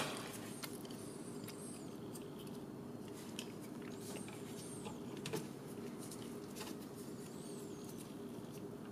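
Faint light clicks and rubbing of a small nut being worked into place by gloved fingers, with a few faint high squeaks, over a steady low hum.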